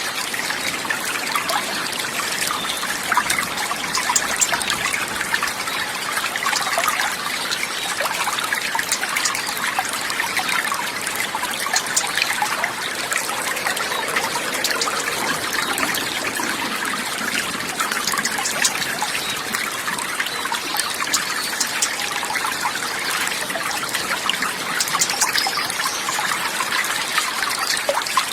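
Continuous trickling, babbling water, like a small stream running over stones, steady with no pauses.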